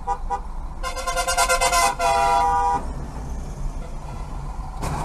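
Car horns honking in traffic: a few short toots, then two long blasts of about a second each, the second at a different pitch, over a low rumble of traffic.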